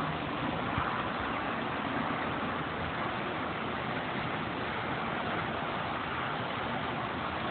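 Steady rushing noise of sandstorm wind, with a faint low hum underneath.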